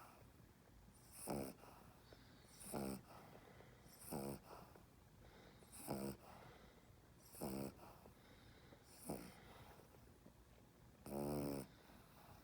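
A dog snoring while held in someone's arms, in short pitched snores about every second and a half. The last one near the end is longer and louder than the others. The owner calls it an 'inverted reverse snore'.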